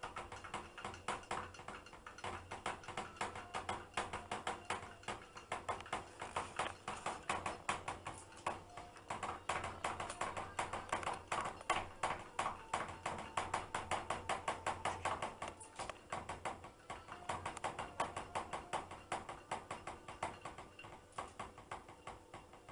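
A cat's paws tapping and scratching at the steel drum of a front-loading washing machine: a fast, irregular run of light clicks.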